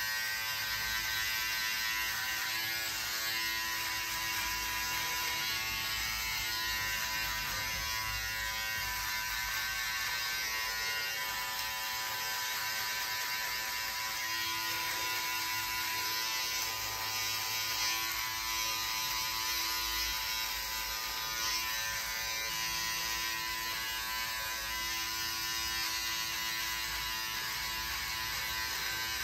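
Electric beard trimmer buzzing steadily as its blades are run over stubble on the cheek, under the chin and around the mouth.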